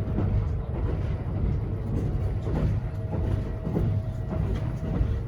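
Cabin noise of a Kintetsu 80000 series Hinotori limited express electric train running: a steady low rumble with a faint, even hum and scattered light clicks.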